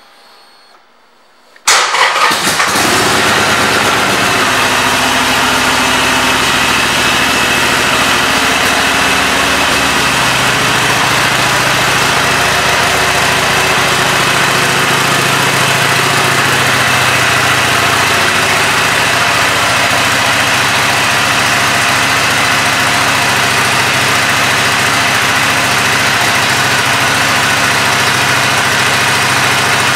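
2017 Harley-Davidson Iron 883's air-cooled 883 cc V-twin starting up about two seconds in, then idling steadily.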